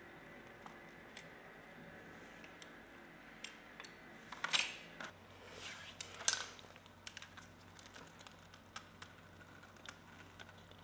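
Tool-handling noise on a tabletop: scattered light clicks and taps from a utility knife and two pairs of pliers, with two louder short scrapes about four and a half and six seconds in.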